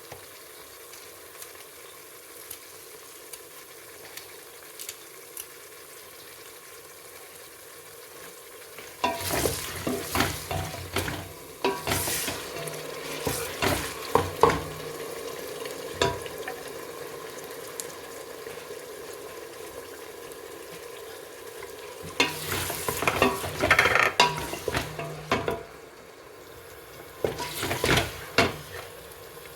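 Onion and ginger-garlic masala sizzling as it fries in a cooking pot, with bouts of a spoon stirring and scraping against the pot, about nine seconds in, again later and near the end.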